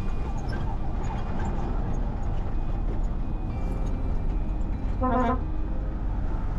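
Road traffic with a steady low rumble, and a short car horn honk about five seconds in.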